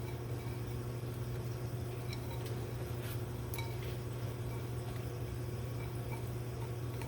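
A steady low hum with a few light clicks and clinks between about two and four seconds in, from small parts being handled while new rubber seals are fitted onto a transmission piston.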